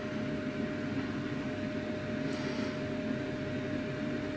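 Steady background room noise: a low hum and hiss with one faint steady tone through it.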